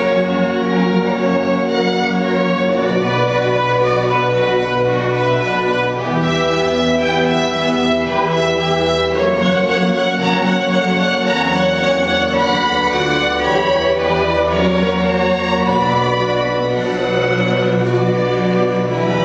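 String orchestra playing slow, held chords on violins, violas, cellos and double basses, the bass moving to a new note every few seconds.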